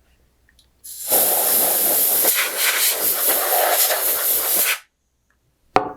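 Can of compressed air spraying a long, steady hiss into an opened receipt printer to blow out dust, starting about a second in and stopping just before the last second, followed by a short knock.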